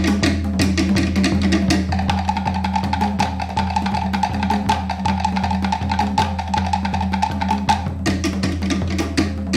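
Music with drums and percussion beating at a steady rhythm, with a held note in the middle part, over the steady low hum of the tour helicopter.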